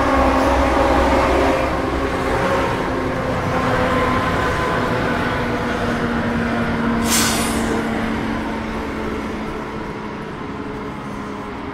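Street traffic: a motor vehicle's engine drones steadily close by, with a short sharp hiss about seven seconds in, and the engine sound fading over the last few seconds.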